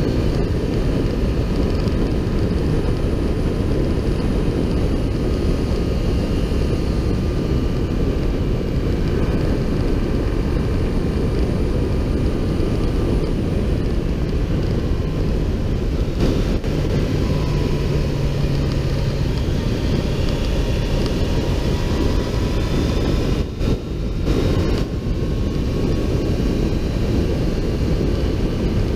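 Motorcycle riding at speed: heavy wind rush over the bike-mounted camera microphone, with the engine's faint drone rising and falling in pitch underneath. The rush dips briefly about three quarters of the way through.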